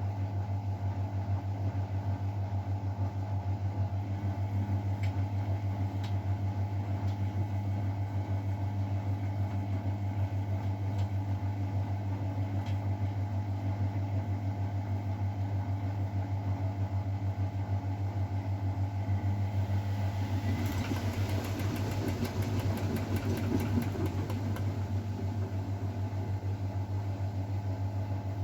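Miele Novotronic W912 washing machine running with a steady hum. About twenty seconds in, a rushing, rapidly rattling noise joins for a few seconds and then fades.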